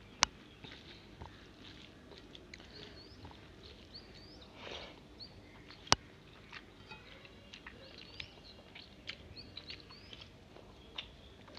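Quiet chewing and the sounds of a hand mixing rice on a steel plate, with two sharp clicks, one just after the start and one about six seconds in. Small birds chirp faintly in the background.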